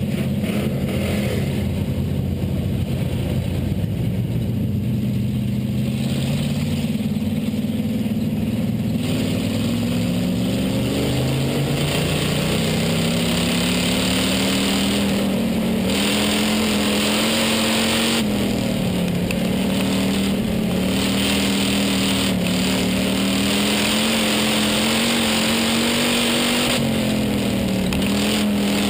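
Hobby stock race car's engine heard from inside the cockpit. It runs low and steady at first, climbs after about ten seconds, then dips and rises again several times as the driver lifts and gets back on the throttle. A hiss of wind and track noise grows with the speed.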